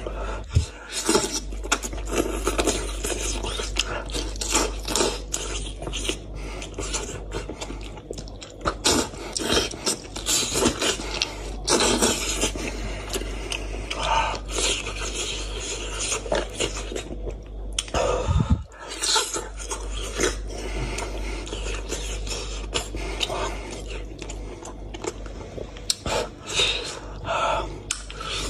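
Close-up eating sounds from a cooked goat's head: meat pulled apart by hand, wet chewing and lip smacking, and fingers and bones scraping the tray. These come as a run of irregular sharp smacks and clicks, some louder than others.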